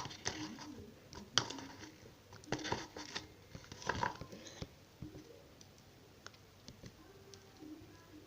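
Mixing glue-and-borax slime by hand in a small container: scattered clicks and short scrapes, busiest in the first half and then only faint handling noises.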